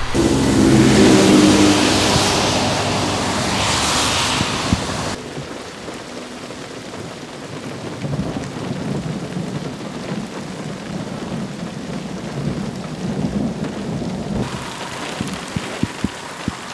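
Thunder rumbling over rain. The rumble is loudest in the first few seconds. About five seconds in the sound drops abruptly to steadier, quieter rain with low rumbling underneath.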